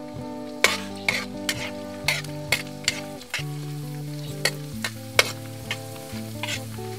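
Squash slices sizzling in hot oil in a wok, stirred with a metal spatula that clinks and scrapes against the metal pan about a dozen times, with soft background music underneath.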